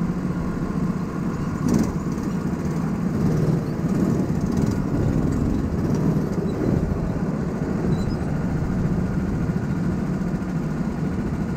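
Go-kart engines idling steadily, with a short sharp click about two seconds in.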